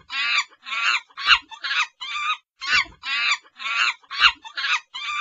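Animal-call sound effect: two runs of quick, high, chattering calls, about two calls a second, with a short break about halfway through.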